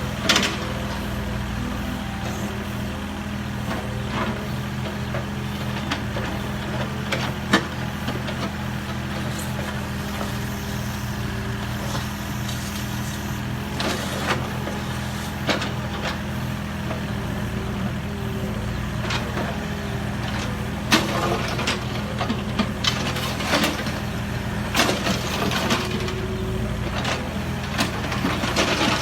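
Mini excavator engine running steadily under load, with scattered sharp knocks and clanks from the machine working, more frequent in the second half.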